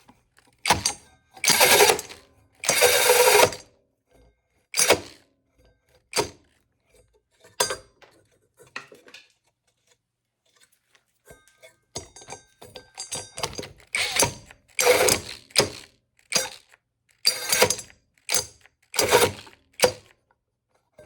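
12-volt cordless drill driving a 5-inch hole saw in short stop-start bursts of about a second each, with a pause a little before the middle. The saw is breaking through and pinching in the cut.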